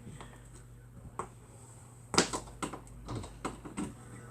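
A run of light, sharp clicks and taps, a few at first and more from about two seconds in, as the refrigerator's power cord and plug are handled and pushed into the wall outlet.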